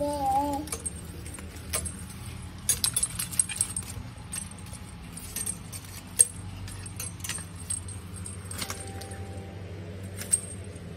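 A cat's drawn-out meow trails off in the first second, followed by scattered light metallic clinks and jingles, a cluster about three seconds in and single sharp ones later, over a low steady hum.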